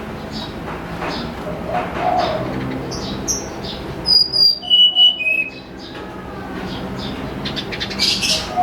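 Tledekan gunung songbird singing: quick high chirps, then about halfway through a run of clear, pure whistled notes stepping down in pitch. A lower stacked call sounds underneath early on.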